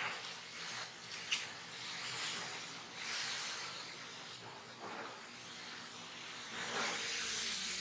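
Steady hiss that swells and fades every second or two, with one sharp click about a second and a half in.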